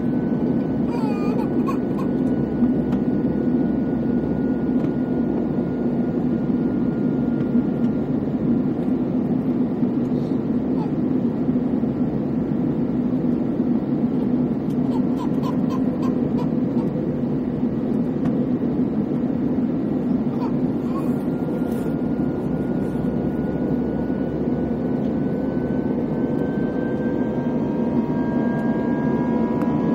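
Steady engine and airflow noise inside the cabin of a JetBlue Airbus A321, with a thin engine whine that rises in pitch over the last few seconds.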